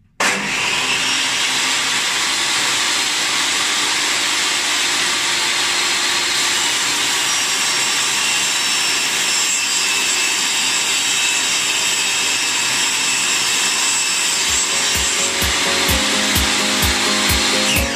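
Lumberjack TS254SE table saw running and cutting through wood: a loud, steady noise with a high whine that starts abruptly. Music with a steady beat comes in about 14 seconds in.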